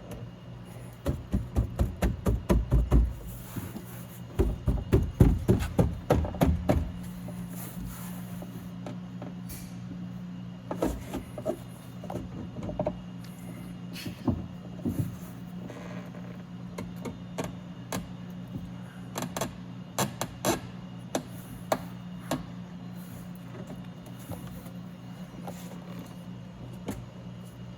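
Two quick runs of rapid clicking and knocking as the door window glass and its plastic parts are worked into the door's track and regulator, then scattered single knocks over a steady low hum.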